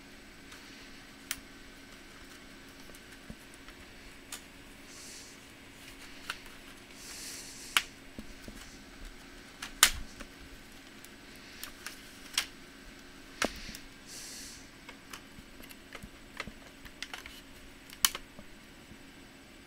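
Irregular sharp clicks and taps of small hard laptop parts being handled, with a few brief scrapes, as the laptop is worked on during disassembly.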